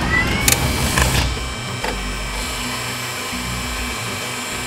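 Cartoon transformation sound effects over background music: a rising whine ends just after the start, two sharp mechanical clicks follow about half a second and a second in, then a steady machine-like whirring.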